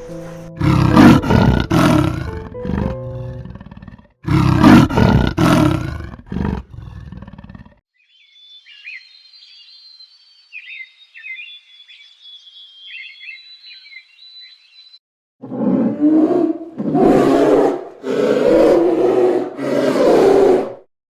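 A large animal roaring in a string of loud, deep bursts, broken in the middle by several seconds of high chirping calls.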